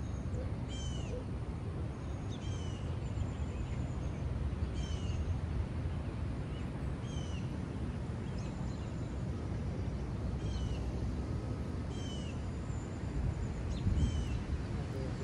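Wind on the microphone, a steady low rumble, with a bird calling over it about every one and a half to two seconds: each call a short downward-slurring note with a quick high twitter.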